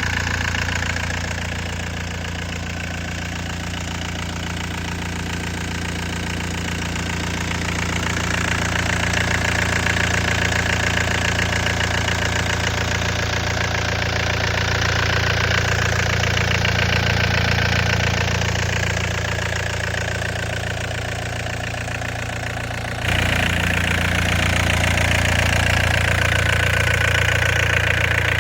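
Diesel engine of a Volvo ECR58 midi excavator running steadily, with a deep, even hum; the sound jumps abruptly louder near the end.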